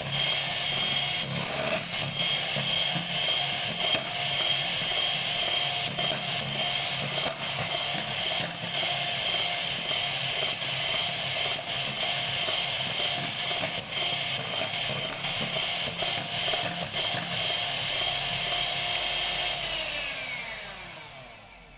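Electric hand mixer running steadily, its beaters whipping instant coffee, sugar and ice water into a thick, foamy coffee cream, with a motor whine and light clicks. Near the end the motor is switched off and winds down, its whine falling in pitch and fading.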